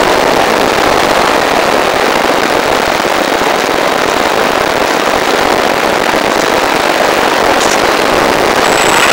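Steady loud rush of airflow with a crackling hiss, picked up by the onboard microphone of an Easy Glider RC model in flight.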